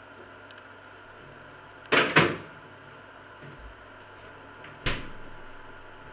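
Sharp knocks of kitchen handling: two close together about two seconds in and a single one near five seconds, over a steady hum.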